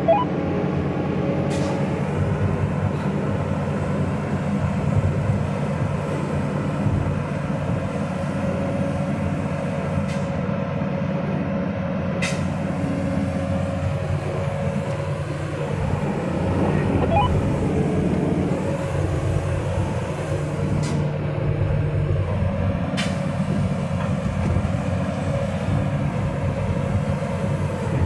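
Kobelco hydraulic excavator's diesel engine and hydraulics running steadily while the arm and bucket are moved, heard from inside the cab; it gets a little louder for a few seconds past the middle.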